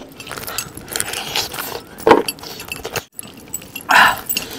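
Metal bracelets and rings jingling and clicking as a man eats curried mutton with his hands from a steel plate. There are two brief louder sounds, about two and four seconds in.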